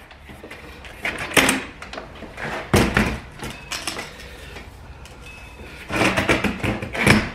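Knocks and clatter of a hinged pair of metal-framed solar panels being unfolded and stood up on a concrete floor, in three bursts: about a second and a half in, around three seconds, and from six to seven seconds in.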